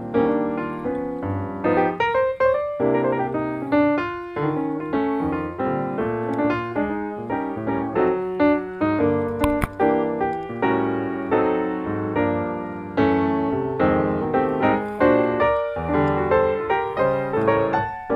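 Solo piano music: a flowing tune of struck notes that ring and fade, with a brief click about halfway through.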